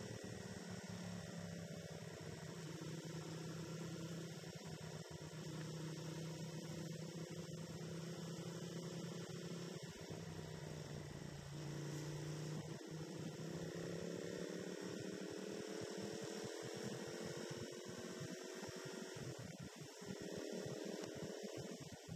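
Motorcycle engine running under way, a steady droning hum whose pitch slowly sinks and climbs with the throttle, rising most clearly in the second half.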